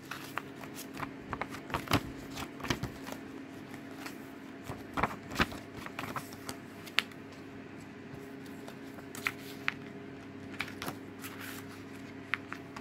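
Hands handling a plastic Blu-ray case and its paper leaflet: scattered, irregular clicks, taps and rustles, with a faint steady hum underneath.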